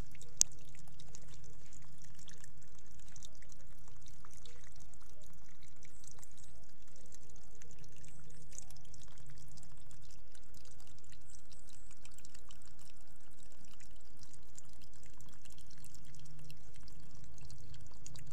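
Water pouring and splashing from a homemade mini water pump's outlet into a plastic tub, over the low steady hum of its small DC motor. One sharp click about half a second in.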